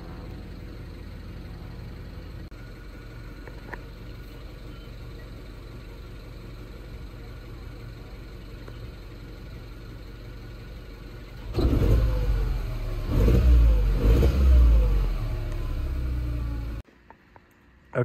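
Mini Cooper S R56's 1.6-litre turbocharged N18 four-cylinder engine idling steadily, then revved in several blips from about two-thirds of the way in before cutting off suddenly. The engine has a misfire, blamed on a failing coil pack, though it runs fairly smoothly.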